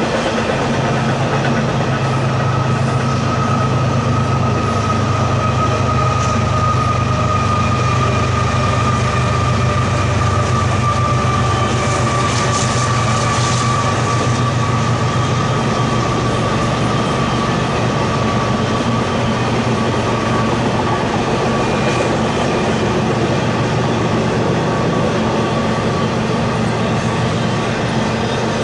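Double-stack container freight cars rolling past: a steady heavy rumble of wheels on rail, with a thin high-pitched squeal running over it that drifts slightly lower in pitch and is strongest near the middle. The rumble eases a little just past halfway.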